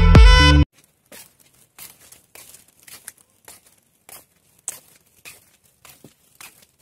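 Background music cuts off suddenly less than a second in. It is followed by faint, irregular rustles and crackles: handling noise from a hand-held phone's microphone rubbing against hair and clothing while walking.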